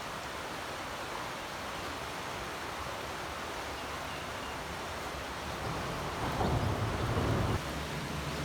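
Steady rushing of a rain-swollen stream running high. About six seconds in, a louder low rumble lasts a second and a half.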